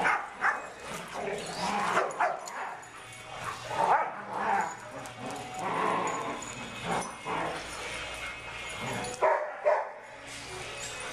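Dogs barking on and off, short barks with the loudest about four seconds in and two close together near the end.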